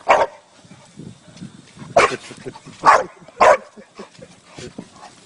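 Dog barking four times: once at the start, then three barks close together around two to three and a half seconds in.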